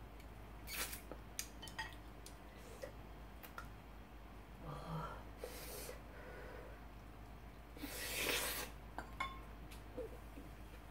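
Chopsticks and a metal spoon clicking and scraping against plates and the pan while food is picked up and eaten. Scattered light clicks come with a few short, louder noisy bursts, the loudest about eight seconds in.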